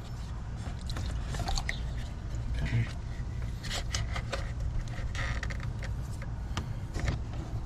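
Scattered light clicks and scrapes of a hand setting down pliers and handling parts in a car's engine bay, over a steady low background hum.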